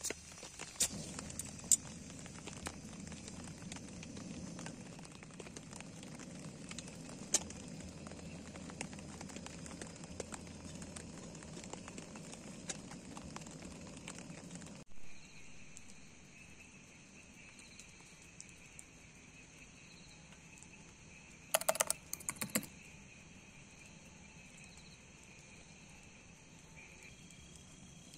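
Portable butane canister stove burning steadily under a kettle, with scattered sharp clicks, the loudest in the first two seconds. About halfway through it cuts abruptly to insects chirping in steady high tones, broken once by a short burst of clattering.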